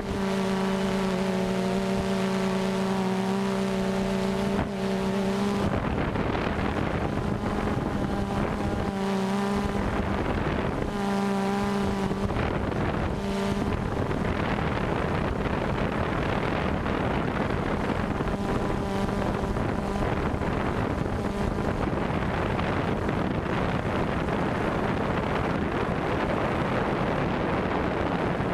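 DJI Phantom 2 quadcopter's motors and propellers heard from its onboard camera: a steady buzzing hum with overtones over a rushing wind noise. The hum is strongest for the first few seconds, then wavers and fades into the rushing noise as the drone descends toward the concrete.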